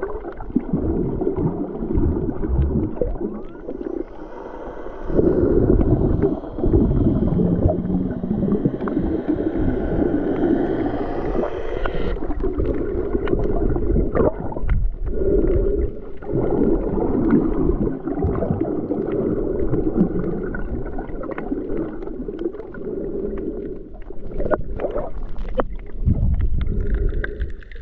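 Underwater sound picked up by a GoPro in its housing: a continuous muffled rumble and gurgling of moving water, swelling and fading unevenly, with scattered faint clicks.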